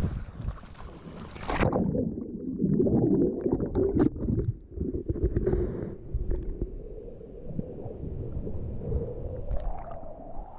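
Whitewater rushing over the camera for the first second and a half, then muffled churning and gurgling of sea water as the camera rides at and just under the waterline, with small splashes and knocks.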